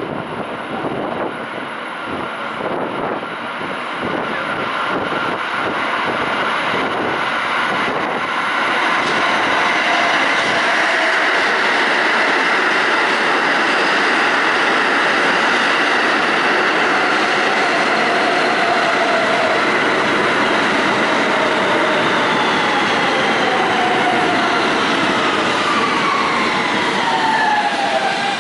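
Kawasaki R160B subway train with Siemens propulsion arriving at an underground station, growing louder over the first several seconds as it comes in and runs past. Over the last several seconds its propulsion whine falls steadily in pitch as the train brakes to a stop.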